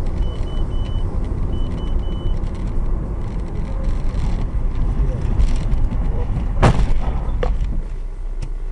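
Car driving with heavy road and engine rumble, with a run of short high beeps in the first two seconds. About six and a half seconds in there is a single sharp bang, then a smaller knock; after that the rumble eases.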